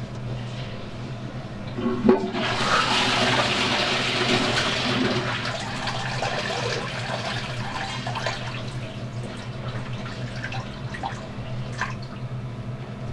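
Public restroom toilet flushing: a sharp knock about two seconds in, then a loud rush of water that slowly tails off over the following seconds, over a steady low hum.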